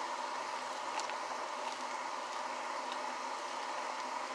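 A pot of pinto beans simmering on the stove: a steady hiss with a few faint ticks.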